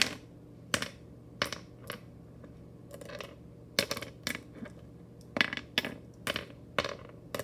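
Glass mancala stones clicking as they are dropped one at a time into the pits of a wooden board. There are about a dozen sharp clicks at uneven intervals.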